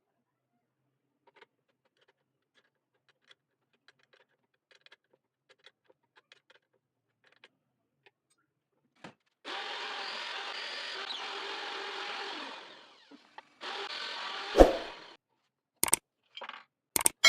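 Light scattered taps, then a small power tool runs steadily for about three seconds, stops and runs again briefly. A sharp knock comes during the second run, followed by a few short knocks and a ringing metal clang at the very end.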